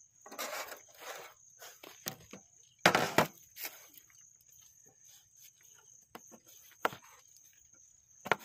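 A kitchen knife knocking and scraping on a wooden cutting board while raw sea cucumber is sliced and the pieces are scraped off. The loudest part is a pair of sharp knocks about three seconds in. Insects trill steadily and high in the background.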